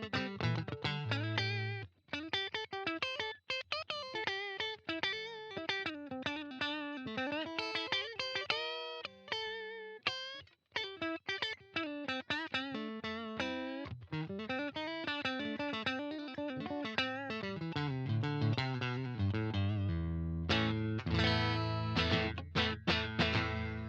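JCraft LSX-1 electric guitar with rewired humbucker pickups, played as a sound test: quick single-note lead lines with string bends. Near the end come fuller, heavier low chords.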